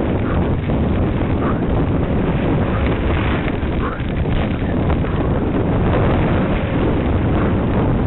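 Heavy wind buffeting on the microphone of a camera carried by a rider on a cyclocross course, over a constant low rumble and rattle from riding across asphalt and rough grass.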